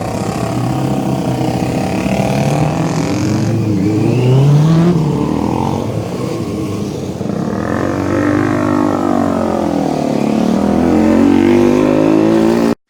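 Several motorcycles riding off, their engines revving up and falling back as they pass, with more than one engine note overlapping. The sound cuts off suddenly near the end.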